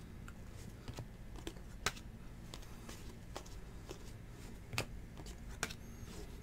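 Scattered light clicks and taps, about a dozen at irregular intervals, the sharpest about two seconds in and again near five seconds, over a faint low hum.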